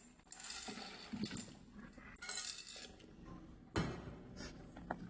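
Dry penne poured from a stainless steel bowl into a pan of boiling water, the pasta rattling and clinking against the metal in two pours, then a single sharp metal knock just before four seconds in.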